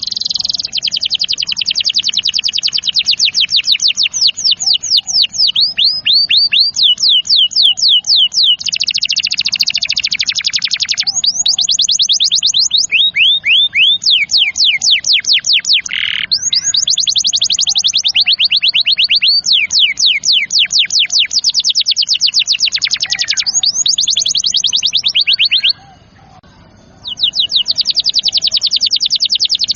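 Canary singing a long song of fast trills, or rolls: each tour is one note repeated many times a second, switching to a new note every second or two, with one brief pause near the end.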